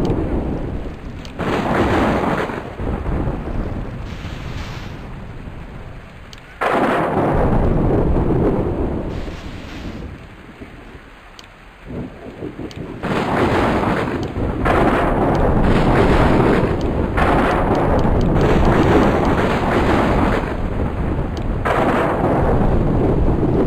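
Thunderstorm: repeated long rolls of thunder over rain. Each roll starts suddenly and dies away over several seconds, with one beginning about a second and a half in, another near seven seconds and a long loud one from about twelve seconds on.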